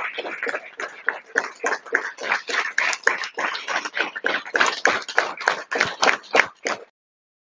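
Studio audience applauding, the nearest people's hand claps standing out sharply at about four to five claps a second; the applause stops abruptly near the end.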